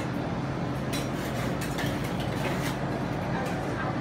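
Steady low machine hum of shop ambience, with a few light clicks scattered through it.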